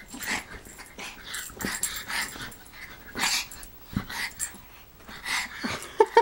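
Two Chihuahuas play-fighting, growling at each other in short, irregular bursts.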